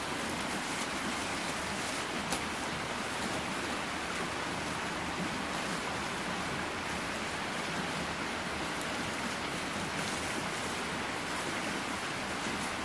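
Steady rushing noise of running water, with a single faint snap about two seconds in.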